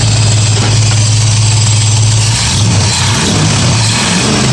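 1965 Ford Mustang's engine running on a Holley carburetor, idling steadily. About two and a half seconds in, the note turns uneven and wavers as the revs shift.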